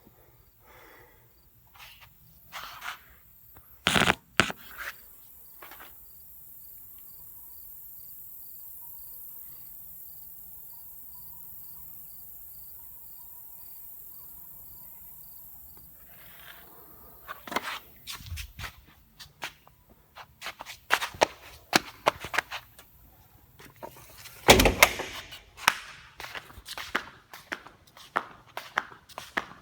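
Flip-flops slapping and flopping in sharp, irregular slaps. There is a pause of about ten seconds in the middle, then a quick run of many slaps, one of them much louder than the rest.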